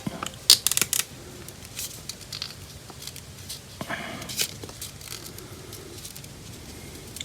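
Quiet close handling of a small sticker sheet and plastic model-kit parts: a few light clicks in the first second and a short rustle about four seconds in, as a tiny sticker is peeled off its backing.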